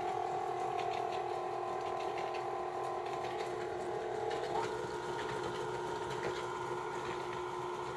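KitchenAid stand mixer running steadily, its flat beater working thick creamed butter-and-sugar batter as eggs go in one at a time. The motor gives a steady whine whose upper tone shifts a little past halfway.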